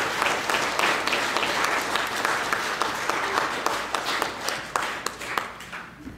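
Audience applause, a crowd of people clapping, thinning out and stopping just before the end.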